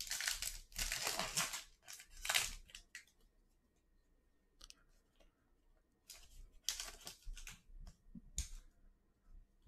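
Foil trading-card pack being torn open, the wrapper crackling in short bursts over the first two or three seconds. After a pause, more crinkling of the foil as the cards are slid out and handled.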